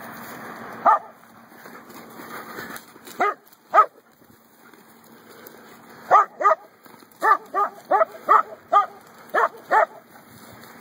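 Dog barking in short, sharp barks: a few single barks, then a quick run of about nine barks from about six seconds in.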